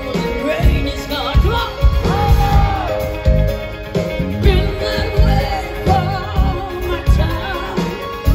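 Live rock band playing with a woman singing lead into a microphone, over a steady drum beat.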